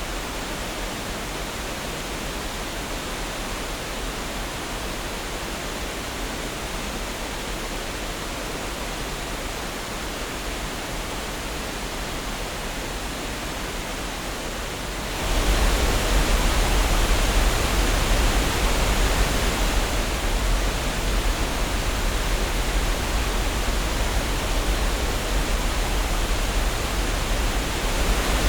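Waterfall: a steady rush of falling water that jumps suddenly louder about halfway through and stays steady after that.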